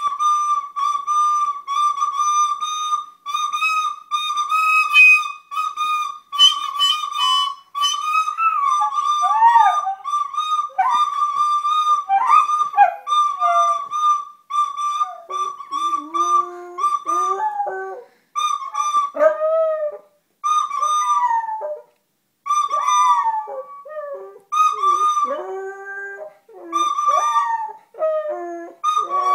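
A flute plays one high note, held and repeated with short breaks. From about eight seconds in, a small dog joins in with howls that slide up and down in pitch below the flute note, a howling response to the flute.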